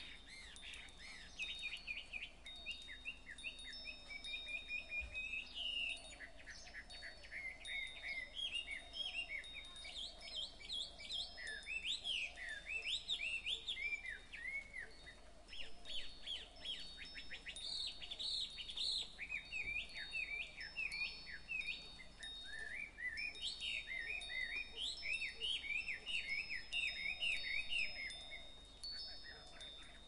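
Birdsong: many birds chirping and warbling in quick, rapid phrases that come in bouts with short lulls between them, over wind chimes ringing with sustained high notes.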